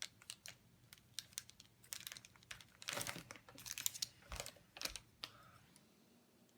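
Faint, irregular light clicks and short scrapes of a small tool spreading two-part glue over the crack of a broken piece. They stop about five seconds in.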